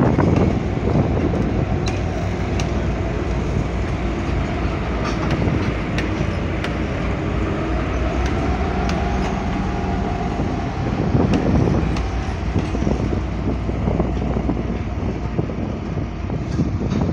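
Twin-section mainline diesel locomotive passing on an adjacent track, its diesel engine running steadily, with scattered sharp clicks from the wheels and track.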